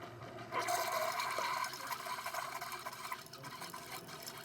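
Rain and running water, a steady hiss that grows louder about half a second in and eases off after about a second.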